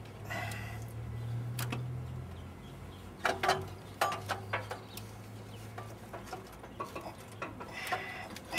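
Hand tools clinking and knocking against metal parts of a truck engine: a scattered run of sharp clicks and taps, with a steady low hum underneath.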